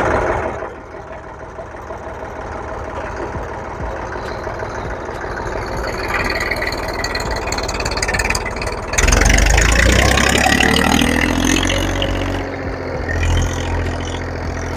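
Massey Ferguson 1035 DI tractor's three-cylinder diesel engine running steadily while pulling a 13-tine cultivator through soil. About nine seconds in it gets louder and its note climbs for a couple of seconds.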